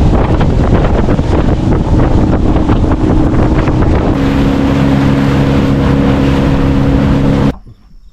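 Motorboat running under way: engine drone under heavy wind and water rush. The engine settles into a steadier tone about halfway through, and the sound cuts off abruptly near the end.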